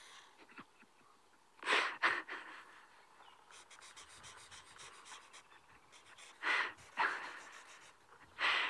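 A man's breathing close to the microphone: four short, hissy breaths spaced a few seconds apart, with faint ticking and scratching between them.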